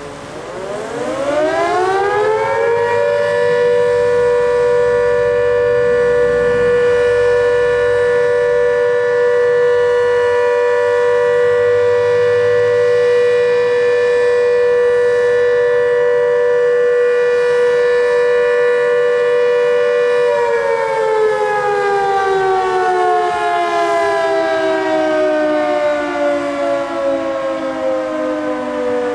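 Motor-driven fire station siren sounding a call-out for volunteer firefighters: it winds up over about three seconds to a steady two-note wail, holds it, then begins winding down with falling pitch about two-thirds of the way through.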